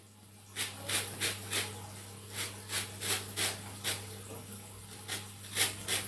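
An orange being zested on a metal hand grater: a run of short rasping strokes, roughly two a second and somewhat irregular, as the peel is scraped across the grater's teeth.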